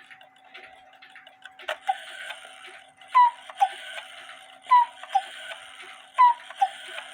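Cuckoo clock with a West German AMS one-day movement ticking, then striking cuckoo. Each call is two falling notes from the whistle pipes, with a puff of hiss from the bellows, repeated about every second and a half. The freshly reinstalled bellows are working.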